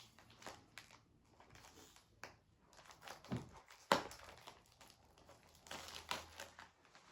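Plastic snack packet crinkling as it is handled and opened, with irregular crackles and one sharper snap about four seconds in.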